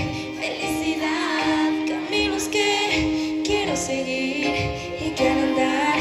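A woman singing live into a microphone over instrumental backing, with long held notes.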